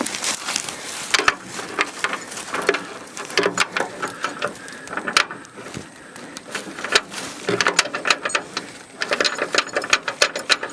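Rapid, irregular clicking and rattling, like a ratchet mechanism working.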